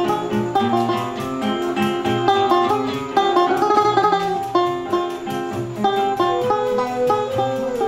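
Live choro music: a flute melody over busy plucked-string accompaniment of guitar and a mandolin-like instrument, with a run of quick short notes and a wavering held note about halfway through.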